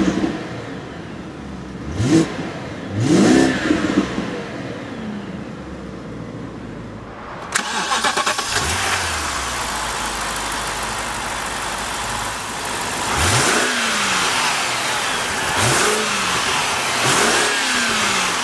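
2008 BMW 550i's 4.8-litre V8 revved in short blips from idle, each rising quickly and falling back to idle. Two blips are heard from inside the cabin; after a sudden change in sound about seven seconds in, three more come from over the open engine bay.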